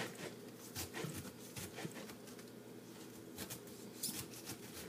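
A kitchen knife sawing through the top of a fresh pineapple: faint, uneven crunching and scraping strokes, a few per second.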